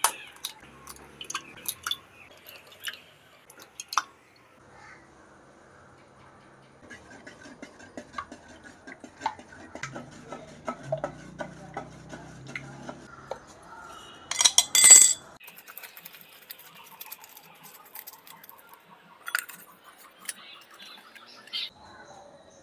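A knife blade tapping eggs to crack the shells, a few sharp clicks, then a wooden stick beating eggs in a bowl, a fast run of ticks against the bowl's side for several seconds. A loud brief clatter of kitchenware comes about fifteen seconds in, followed by a few scattered knocks.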